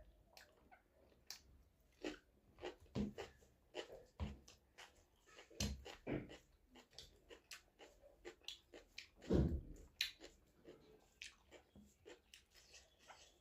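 Close-up eating sounds of finger-millet dhido and chicken curry: irregular wet chewing, lip smacks and small mouth clicks, with a louder smack or gulp a few times.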